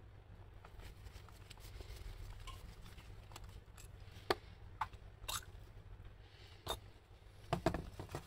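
Small clicks and taps of a screwdriver and metal parts on a motorcycle carburetor being worked by hand, a few sharp ticks from about halfway through, the last ones in a quick cluster near the end, over a steady low hum.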